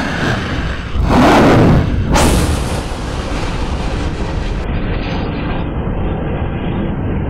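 Two SM-2 Standard surface-to-air missiles launching from a destroyer's vertical launch system, their rocket motors close by and very loud. The loudest blast comes about a second in and a second one follows about two seconds in. A steady rumble then carries on as the missiles climb away, going duller from about four and a half seconds in.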